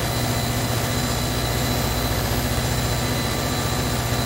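Steady low drone of engine-room machinery running, with a faint constant high whine over it.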